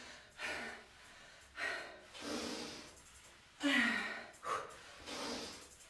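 A woman breathing hard under exertion, with forceful exhalations about once a second, a few of them half-voiced, during the final repetitions of sliding side lunges.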